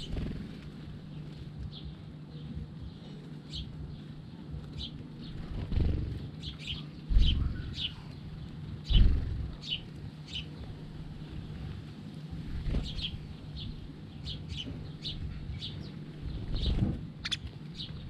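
House sparrows chirping in short, repeated notes while feeding, with a few dull thumps close to the microphone.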